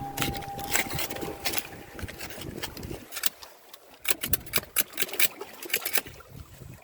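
Irregular sharp clicks and clatters of shells and stones knocking together while wild mussels are picked off shoreline rocks, coming thickest in the second half over a faint wash.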